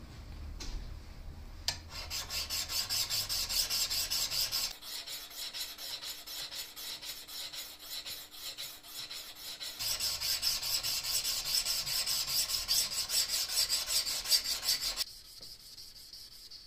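Abrasive sanding stick scraping back and forth along a steel knife blade in quick, even strokes, hand-sanding the blade. The strokes go softer for a few seconds in the middle, pick up again, and stop near the end.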